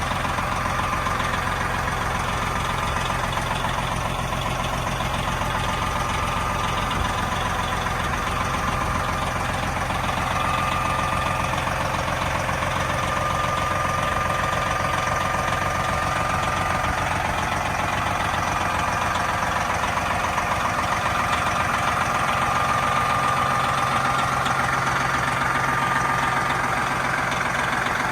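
Peterbilt 378 semi truck's diesel engine idling steadily.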